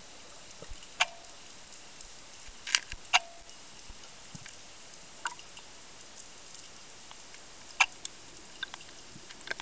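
Underwater ambience picked up by a camera under the sea: a steady faint hiss with about eight sharp, irregular clicks and pops, a few of them loud and briefly ringing.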